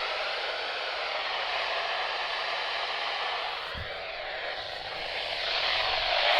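Radio static from a weather radio receiver: a steady hiss with faint wavering whistles through it, swelling near the end.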